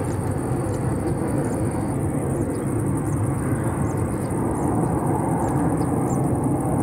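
Jet noise from the Airbus Beluga XL's twin Rolls-Royce Trent 700 turbofans at take-off power as it climbs past: a steady, deep rumble that holds level throughout.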